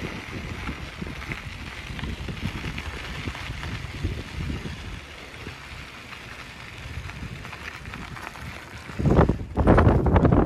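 Wind buffeting a phone microphone during a bicycle ride, with a low rumble underneath. About nine seconds in, a much louder burst of rough noise begins.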